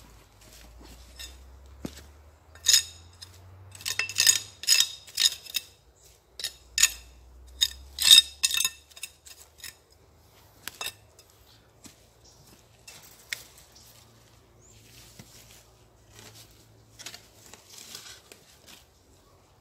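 A steel hoe chopping and scraping at packed soil and leaf litter, clearing built-up dirt from along a fence. It makes a quick run of sharp metallic clinks and scrapes, loudest in the first half, then softer, sparser scraping.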